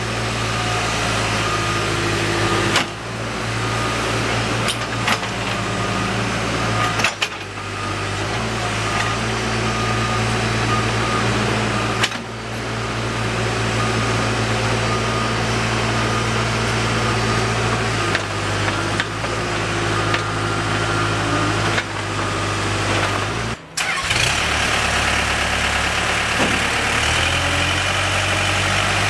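Case 580M Series 2 backhoe loader's diesel engine running steadily. Its pitch and level shift every few seconds, with short dips and a brief drop-out near the end.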